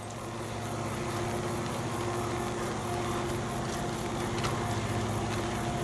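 Steady low drone of the two CC 205 diesel-electric locomotives' engines running as they haul a coal train, with a couple of faint clicks a little past the middle.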